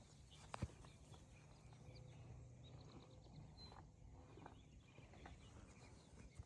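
Near silence: faint outdoor background, with one sharp click about half a second in and a few faint, short high chirps near the middle.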